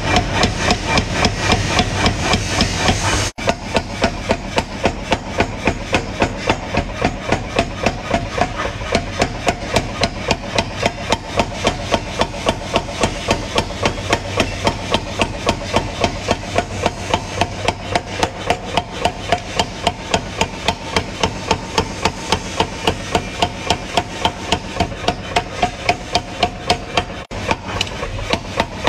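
Power hammer pounding red-hot steel on its anvil die in a rapid, even run of blows, several a second, forging a knife blade.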